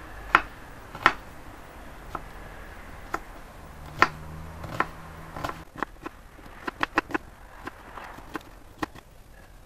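Kitchen knife chopping red onion on a wooden cutting board: sharp knocks of the blade against the board, spaced out at first, then quicker from a little past halfway.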